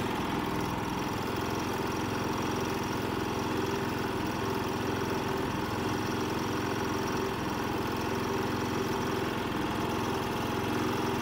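Predator 3500 inverter generator's 212cc single-cylinder engine running steadily at its lower eco-mode idle with no load.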